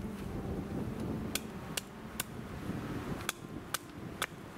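Gränsfors hatchet chopping a green birch cup blank. There are six sharp strikes in two sets of three, about 0.4 s apart, starting about a second and a half in.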